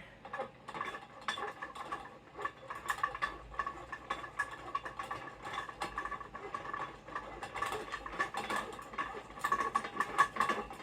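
Metal parts of a dance pole clicking and clinking over and over as its threaded height adjuster is turned to extend the pole toward the ceiling, with a faint metallic ring behind the ticks.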